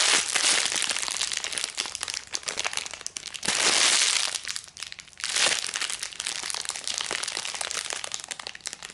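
Clear plastic packaging bag crinkling as a jumbo foam cake squishy is squeezed and crushed inside it by hand, with a louder stretch of crinkling about four seconds in.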